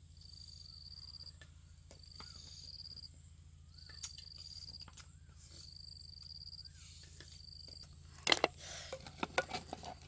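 An insect trilling in regular high-pitched bursts about a second long, one roughly every second and a half, with a faint rising-and-falling chirp between them. About eight seconds in, a run of sharp knocks and rustling handling noise becomes the loudest sound.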